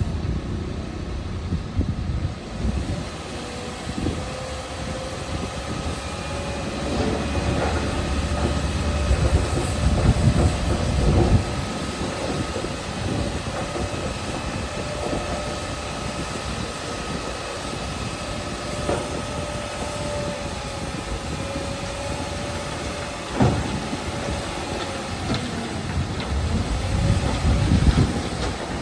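Shantui DH17C2 crawler bulldozer working: engine running with a steady whine, with scattered clanks and knocks from the tracks and blade, louder spells around ten seconds in and near the end, and a sharp knock a little past twenty-three seconds.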